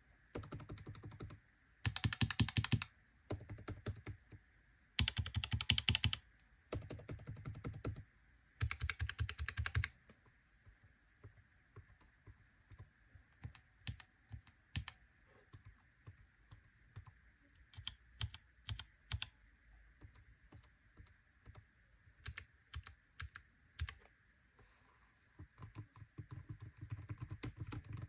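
Typing on keyboards, a laptop keyboard and a Ferris Sweep split keyboard with low-profile Kailh Choc switches. The first ten seconds hold rapid runs of keystrokes, about a second each with short gaps. After that come quieter, scattered single keypresses, and fast typing picks up again near the end.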